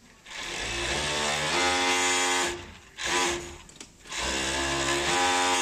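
ROSEW GC647KD four-thread overlock sewing machine running as it stitches a fabric edge. The whine rises as it speeds up, then holds steady. It stops about halfway through, gives one short burst, and runs up to speed again near the end.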